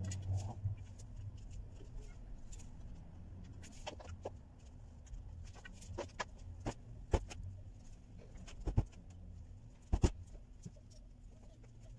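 Scattered clicks and knocks of plastic clothes hangers and a long hanging pole against the clothesline as laundry is hung, with a few sharper knocks about four, seven, nine and ten seconds in, over a faint low hum.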